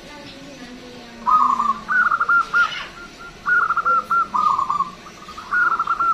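Local zebra dove (perkutut) singing: about five phrases of quick, clipped coo notes, the first about a second in, each phrase loud and separated by short pauses.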